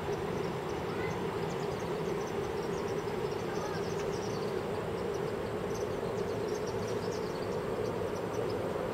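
Steady roar of the Iguazu Falls heard from a distance, an even rushing without pauses, overlaid by many short, high insect chirps.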